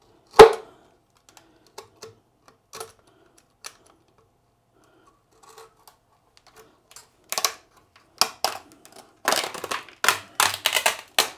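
Black plastic casting ring being cut and prised off a cast concrete base: one sharp knock about half a second in, a few scattered clicks, then from about seven seconds on a dense run of clicking, cracking and scraping.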